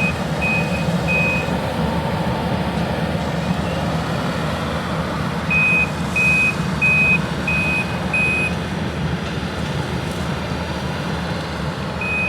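Heavy earthmoving machine's engine running steadily, its reversing alarm beeping about twice a second in short spells: a few beeps at the start, a longer run in the middle, and again near the end as it backs up.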